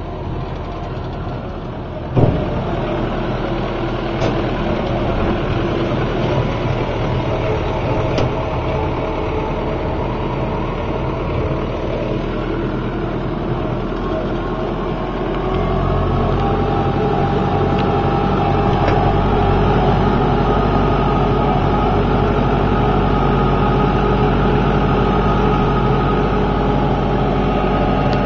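Farm tractor engine running steadily while the tractor drives, with one sharp knock about two seconds in. About halfway through, the engine note steps up and grows louder.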